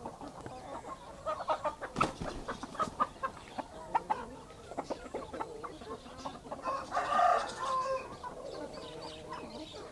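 Flock of backyard chickens clucking while feeding, with many short clicks of pecking through the first several seconds. About seven seconds in, one bird gives a louder call about a second long.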